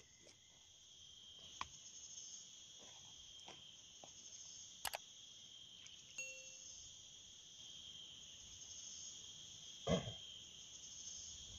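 Steady high-pitched chorus of insects in tropical forest. A few faint clicks, and a brief dull knock or splash about ten seconds in, are the loudest sounds.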